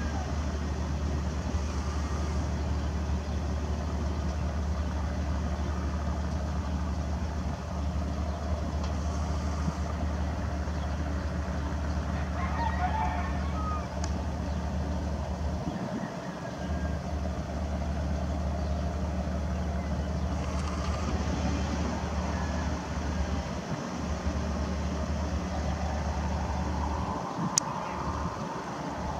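Steady low rumble, with a rooster crowing faintly once about twelve seconds in.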